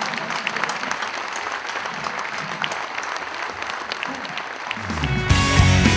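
An audience clapping in applause. About five seconds in, loud music cuts in over it.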